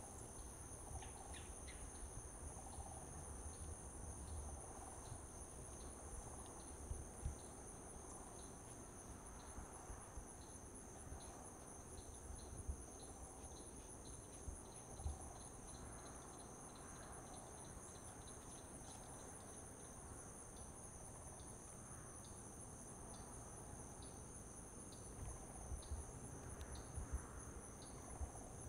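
Steady high-pitched chorus of insects trilling on two pitches, with a few soft low thumps now and then.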